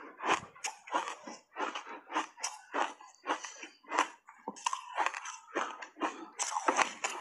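Block ice coated in matcha powder being chewed with closed mouth: a steady run of sharp crunches, about three a second, picked up close by a clip-on microphone.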